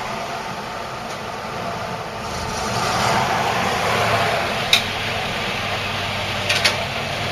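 An engine running steadily, getting somewhat louder around three seconds in, with a sharp click near the middle and another near the end.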